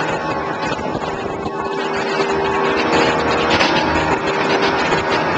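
Contender 27 center-console boat under way, its outboard engines running with a steady hum over wind and rushing water.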